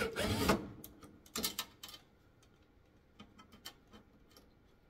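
Cordless drill-driver running briefly as it backs out a tanning bed ballast's mounting screw, stopping about half a second in. A few sharp clicks follow, then light ticks as the loose screw and washer are handled.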